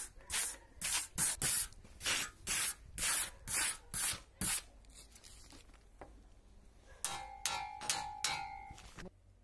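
Rusty steel blade of an antique crosscut saw being scrubbed by hand with an abrasive, in quick back-and-forth strokes about two a second. After a short pause a few more strokes near the end make the thin blade ring with a metallic tone.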